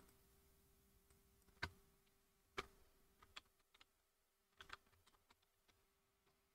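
Near silence: a faint steady hum under a handful of soft, irregular clicks from a computer keyboard and mouse being worked.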